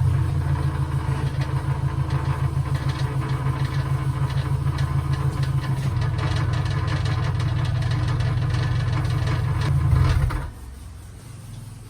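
Car engine running steadily with a fast rattle over it, the abnormal noise from a corroded muffler whose flange has rotted. Both stop suddenly about ten seconds in.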